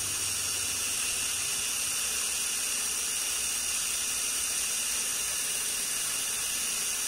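Mollar CDID20500 cordless drill running steadily under load, its Sutton bit boring into metal, with a continuous high whine over a grinding hiss. The bit is one the user calls not very sharp.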